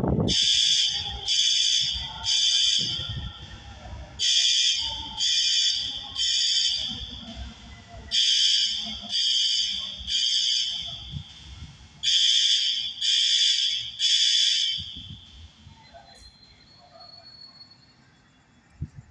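Fire alarm horn sounding the three-pulse evacuation pattern: three loud, high-pitched beeps, a pause, then again, repeating about every four seconds. It stops about 15 seconds in.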